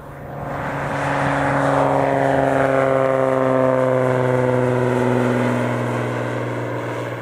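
Single-engine high-wing propeller plane climbing out after takeoff and passing close by. The engine and propeller drone grows loud within the first second, and its pitch falls steadily as the plane goes by and away, easing off near the end.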